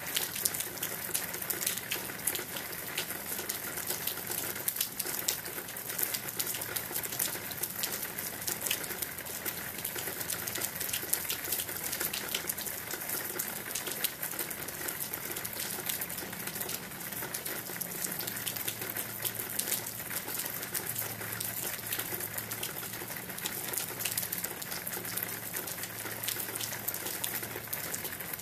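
Steady rain: a constant hiss with many close raindrops tapping one by one.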